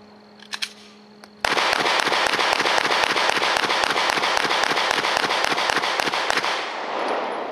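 A Glock 17 9mm pistol firing a rapid string of shots, several a second, for about five seconds. The shots start about a second and a half in and stop shortly before the end.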